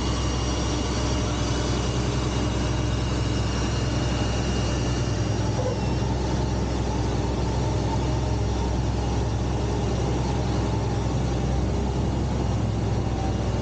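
Tractor engine running steadily under load while pulling a planter, a constant low drone. A faint high whine fades out about six seconds in.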